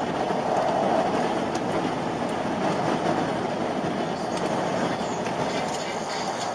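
Steady road and engine noise inside a moving vehicle's cab at highway speed, with a few faint ticks and rattles.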